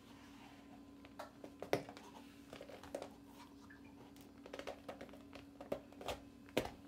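High-heeled suede pumps tapping and scuffing on a tile floor as the wearer shifts her feet and works them into the shoes: a scattering of irregular light clicks and knocks, the sharpest about two seconds in, over a faint steady hum.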